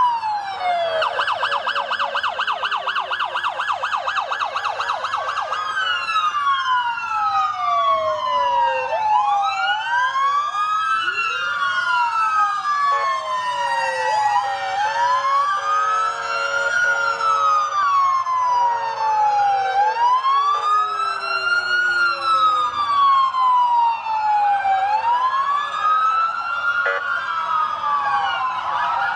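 Several emergency vehicle sirens sounding at once. One gives a fast yelp for the first few seconds, then overlapping wails rise and fall slowly, out of step with each other.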